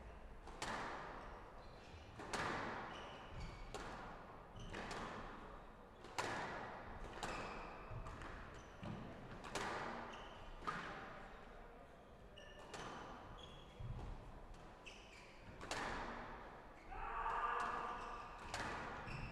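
Squash rally: the ball hit by the racket and slapping off the walls of a glass court about once a second, each hit ringing in the big hall, with short squeaks of players' shoes on the wooden floor between hits. A held tonal sound about a second long comes near the end.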